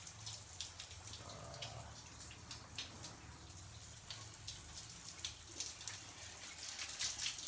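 Water running through an AEG electric instantaneous water heater on a flow test, with irregular drips and splashes over a low steady hum.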